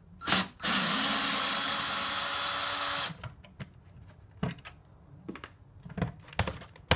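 Cordless drill backing a screw out of a plastic sprinkler controller: the motor spins up with a short rising whine, runs steadily for about two seconds, then stops. Light knocks and clicks follow as the loosened controller is handled.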